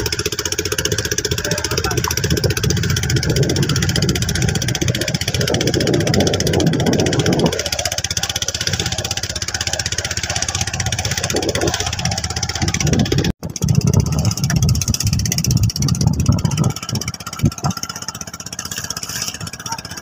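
Small engine of an outrigger fishing boat running steadily under way, with a momentary break about thirteen seconds in.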